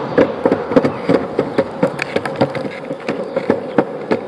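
Longboard wheels rolling on pavement: a steady hum with a rapid, irregular run of clicks and clacks, several a second.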